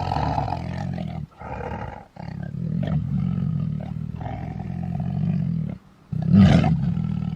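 Golden tiger roaring in a series of long, deep calls with short breaks between them; the loudest call comes near the end.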